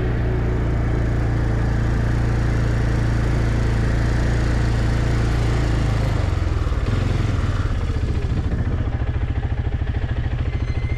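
Quad bike (ATV) engine running under way. About six seconds in the throttle closes and the note drops to a lower, pulsing idle as the quad rolls to a stop.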